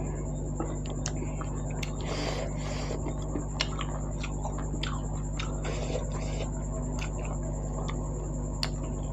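A person chewing and eating wheat dhido and goat meat close to the microphone: irregular wet mouth clicks, smacks and soft squishing, over a steady low hum.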